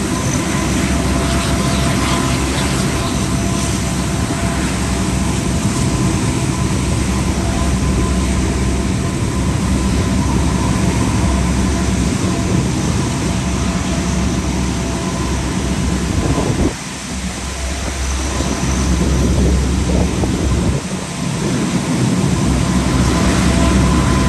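Allison T56 turboprop engines of taxiing Lockheed P-3K2 Orions running on the ground: a loud, steady drone with a high whine. The sound drops suddenly about two-thirds of the way through, then builds again.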